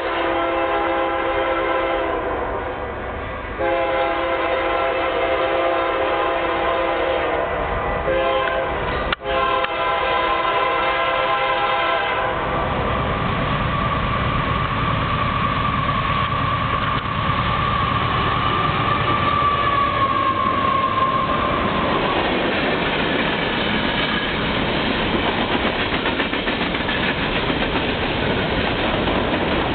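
A Union Pacific freight locomotive's multi-note air horn blows a chord in several long blasts with short breaks for the crossing. About twelve seconds in the locomotives pass close by, and then loaded coal cars roll past fast, their wheels clacking over the rail joints. A steady high whine is heard during the first ten seconds of the passing and falls slightly as it fades.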